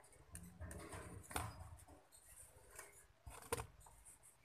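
Faint clicks and rubbing of fingers handling a bare mobile phone circuit board on a workbench, with two sharper taps about a second and a half in and again near three and a half seconds.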